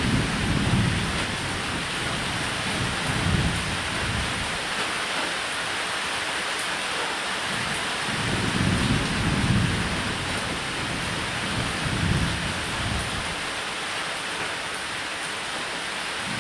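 Steady rain pattering on a roof, with low rolls of thunder rumbling up several times, about a second in, near 3 seconds, a longer roll around 8 to 10 seconds and another at 12 seconds.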